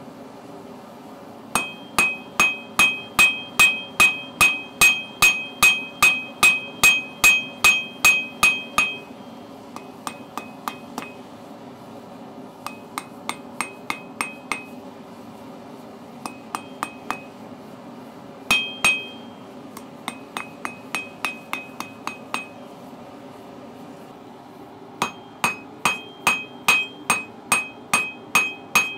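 Hand forging: a hammer strikes steel on a 30 kg anvil, and the anvil rings at each blow. Runs of heavy blows at about three a second give way to groups of lighter taps and one single heavy blow, then heavy blows start again near the end.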